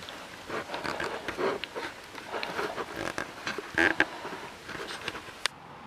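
Animal-like grunting noises in irregular short bursts, the strange noise being tracked through the attic, with a few sharp knocks mixed in.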